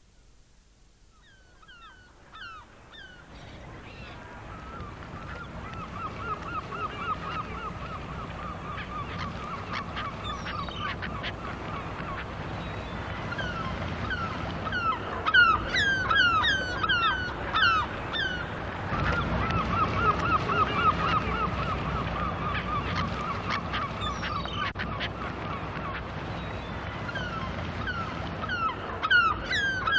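A flock of estuary waterbirds calling: a dense chatter of calls with many sharp, piping cries over it, fading in over the first few seconds.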